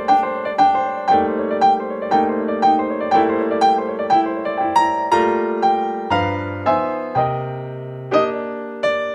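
Background piano music: a steady run of single notes, about two a second, over held chords.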